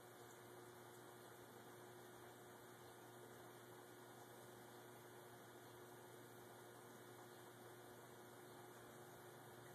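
Near silence: a steady low electrical hum over faint hiss.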